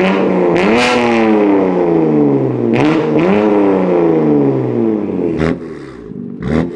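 BMW M2 Competition's S55 twin-turbo inline-six on an equal-length valved exhaust, revved twice. Each time the pitch climbs quickly and then falls away slowly as the revs drop. A couple of sharp cracks come near the end.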